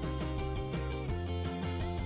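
Background music with guitar, played at a steady level, with chords changing about twice a second over a sustained bass.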